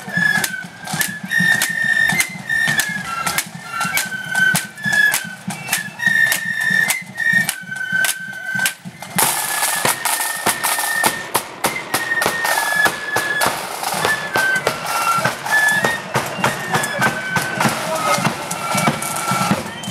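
Marching flute band playing a tune: flutes carry the melody over a steady beat of snare and bass drums.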